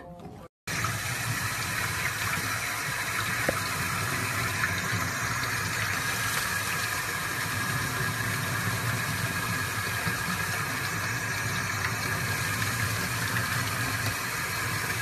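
Sink tap running steadily, its stream splashing onto a small puppy held under it in the sink. It starts about half a second in.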